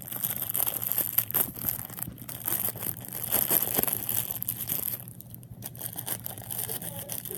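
Rustling and crinkling from squishy foam toys being handled and squeezed, with irregular small crackles; it gets quieter about five seconds in.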